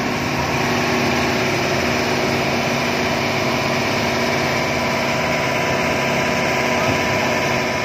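Hitachi excavator's diesel engine running steadily.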